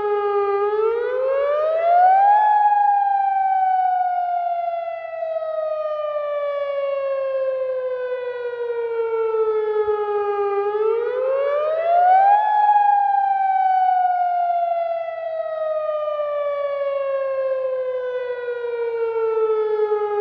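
AHAB (All Hazard Alert Broadcast) tsunami warning siren sounding a wail in a test: the pitch climbs quickly over about two seconds, then sinks slowly for about eight, and the cycle runs twice.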